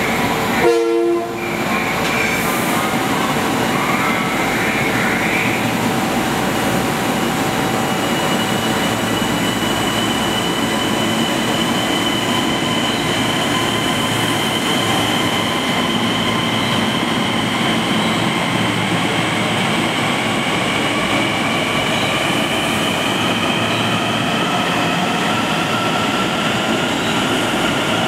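Kawasaki M9 electric multiple-unit train pulling out and gathering speed, its traction motors whining in several tones that rise slowly as it accelerates, over the steady running noise of the cars. A brief, louder sound about a second in.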